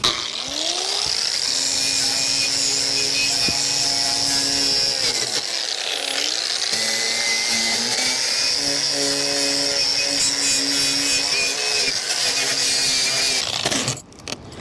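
Milwaukee angle grinder with a wire cup brush scrubbing old roof coating and rust off a corrugated metal roof seam. It spins up just after the start, runs steadily, briefly slows and picks up again about halfway through, and shuts off near the end.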